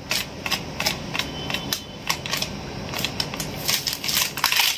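Plastic packet of red chili powder crinkling and tapping as it is shaken out into a steel tumbler: a run of irregular light clicks and crackles, with a brief hissing rustle near the end.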